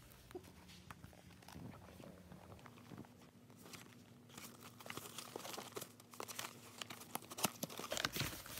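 A small cardboard box being handled and its flap opened, with crinkling and rustling of the individually plastic-wrapped masks inside. Sparse rustles and clicks at first, then busier and louder handling from about halfway through.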